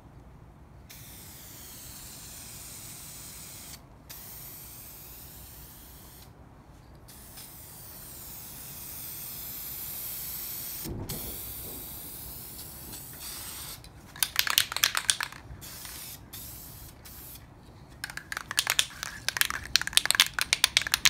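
Aerosol can of vinyl spray paint hissing in about four long sprays of three to four seconds each with brief breaks between them. From about two-thirds of the way in, a fast clattering rattle, louder than the spray, comes in two spells: the can being shaken, its mixing ball knocking inside.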